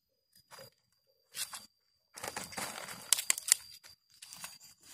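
Rustling and scraping as a cat shifts and gets up on a woven bamboo tray scattered with dried cacao beans. The sounds are sparse at first and grow denser about two seconds in, with a few sharp clicks.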